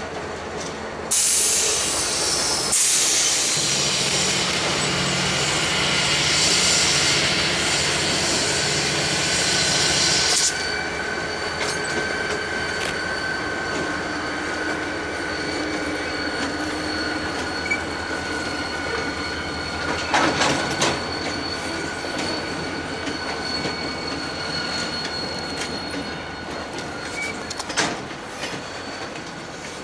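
Pan Am Railways freight train rolling past: diesel locomotives followed by loaded flatcars. A loud rushing noise starts suddenly about a second in and cuts off at about ten seconds. After that, a steady high wheel squeal runs under the rumble of the cars, with a few sharp clanks in the second half.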